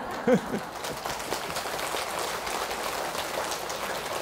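Audience applauding: a steady patter of many hands clapping, with a short voice sound just after the start.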